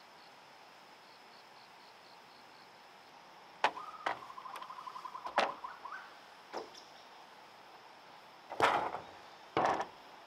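Several sharp, hollow knocks of bamboo poles striking one another, the two loudest near the end, over a faint steady insect drone. A short rapid pulsing trill runs for about two seconds under the first knocks.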